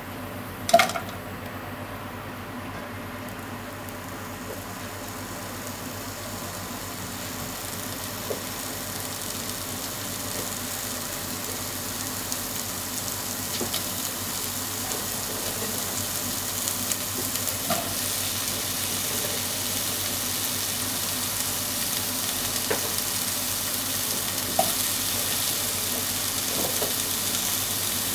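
Oil sizzling in a nonstick stock pot, a steady hiss that grows louder, as sliced onion and potato chunks are dropped in by hand with a few light knocks. A sharp knock about a second in is the loudest sound.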